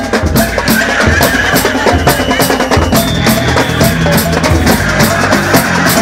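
Large percussion ensemble playing live: massed drums beating a fast, steady rhythm over a deep bass line.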